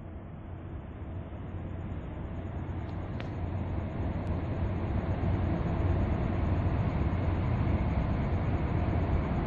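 Low, steady rumble of a large container ship's engine and propeller as it comes in, growing louder over the first several seconds and then holding.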